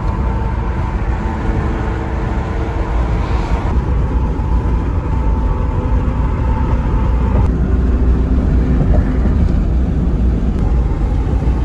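Steady road and tyre rumble inside a moving car at highway speed, heaviest in the low end. The noise shifts abruptly twice, about four and seven and a half seconds in.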